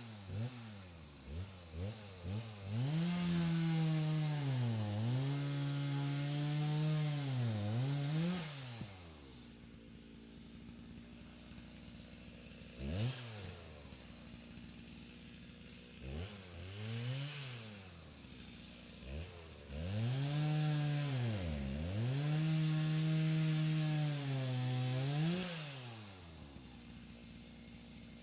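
Chainsaw heard from a distance, blipped through a few short revs, then held at high revs for about five seconds while cutting, its pitch dipping under load. It drops back to idle with one brief rev, revs up again and makes a second cut of about five seconds, then settles to idle.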